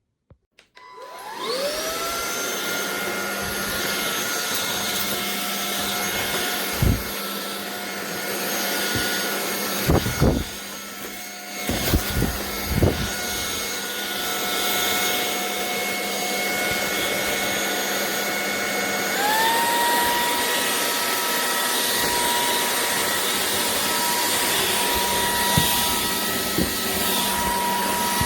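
Anyson cordless stick vacuum cleaner switching on and spinning up about a second in, then running with a steady whine over a rush of air. A few knocks come around the middle. About two-thirds through, the motor steps up to a higher pitch and keeps running there.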